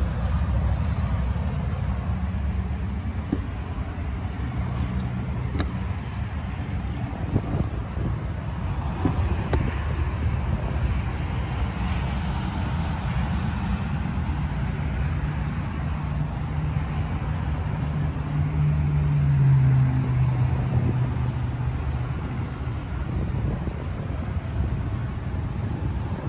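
Vehicle engine idling: a steady low hum, with a tone that rises and swells briefly about nineteen seconds in.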